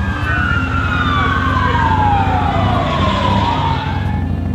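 A siren wailing, its pitch sliding down over about three seconds while another sweep rises, over a steady low engine rumble.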